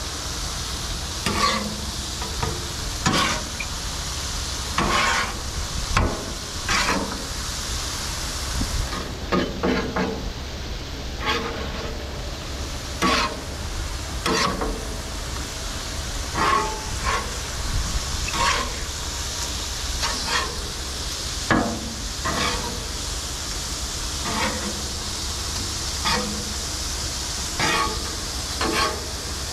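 Thin snapper fillets sizzling in hot olive oil on a flat-top griddle, with a metal spatula scraping across the griddle plate every second or two as the fillets are flipped.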